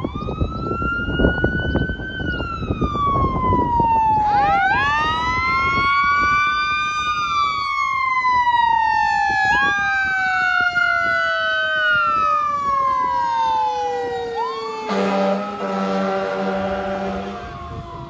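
Fire engine sirens wailing, several rising and falling tones overlapping. About 15 seconds in, the engine's air horn sounds in a long blast of about two seconds.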